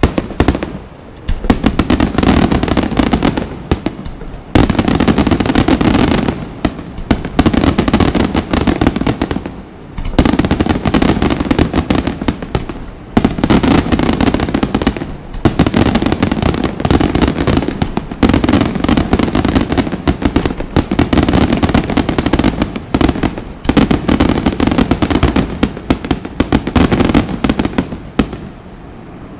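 Daytime aerial fireworks display: a dense barrage of rapid firework bangs and crackling. It comes in loud volleys of a few seconds each, separated by short dips, and dies away near the end.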